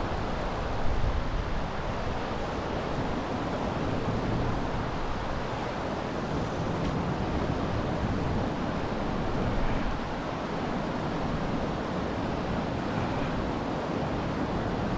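Steady rush of river water running over rapids, with wind buffeting the microphone.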